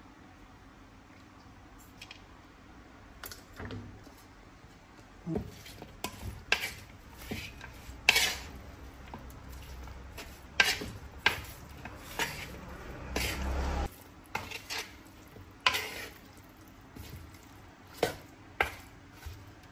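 Kitchen utensils knocking and clinking against pots and dishes, with some stirring: a scattered series of sharp knocks at irregular intervals, busier around two thirds of the way through.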